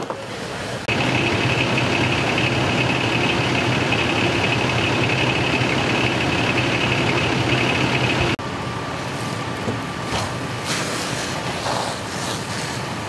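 A Pierce fire engine running steadily at the scene, a low engine hum under a steady high whine. The sound cuts off abruptly about eight seconds in and gives way to a broad hiss.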